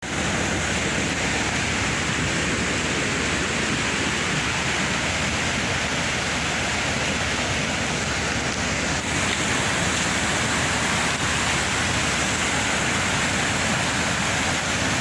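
Steady rush of a fast, powerful floodwater torrent pouring across a washed-out road.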